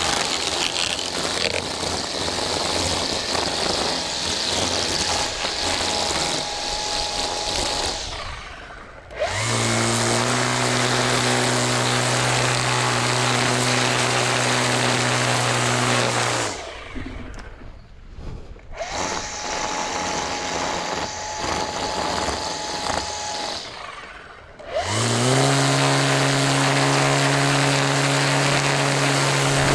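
String trimmer at work, its line cutting grass. The sound comes in spells cut by short drops where the throttle is let off: a hissing stretch with a thin steady tone, then a steady buzzing run that swells up as the trimmer is throttled again, and the same pattern once more.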